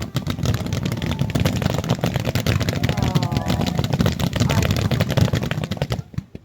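Fireworks crackling and popping in a dense, rapid barrage. It stops abruptly about six seconds in.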